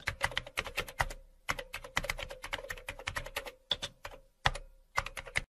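Computer keyboard typing sound effect: rapid key clicks in quick runs broken by short pauses, cutting off abruptly near the end.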